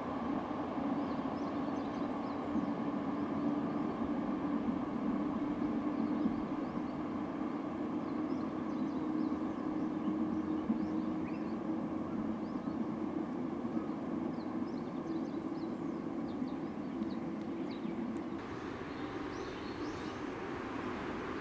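Steady low ambient rumble with no train in sight, with faint, short, high bird chirps scattered over it. The rumble thins and turns hissier about 18 seconds in.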